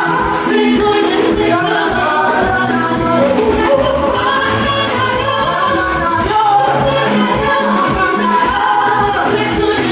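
Congregation and band singing an upbeat gospel song, a group of voices over a steady beat.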